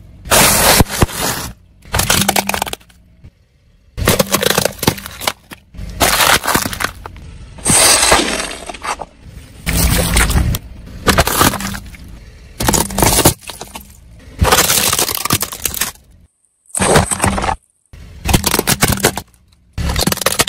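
A car tyre crushing a run of objects, plastic toys and gel water beads among them: about a dozen short bursts of cracking and crunching, each starting and stopping abruptly.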